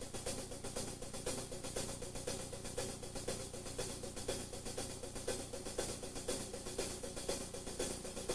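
Drum kit played with sticks: a quiet, fast, even pattern of strokes on the snare drum, keeping time alone.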